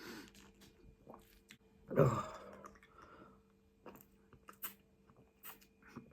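Close-miked chewing and mouth sounds of someone eating a homemade burger, with one louder bite or mouth noise about two seconds in and a few short wet clicks after it.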